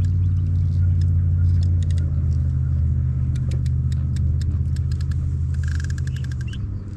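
A low, steady engine-like rumble that fades away near the end, with faint scattered ticks and chirps above it.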